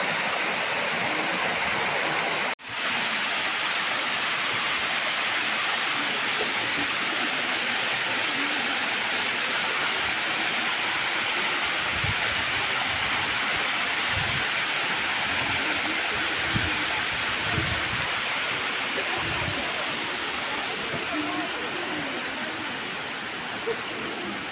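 Waterfalls on a mountain creek, water rushing and pouring in a steady, even roar, briefly cut off a few seconds in.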